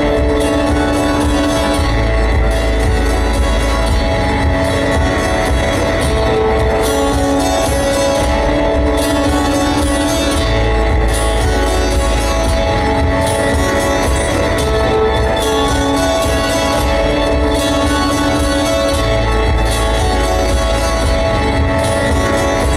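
Live music from an amplified guitar: dense, held, layered tones over a steady low bass drone.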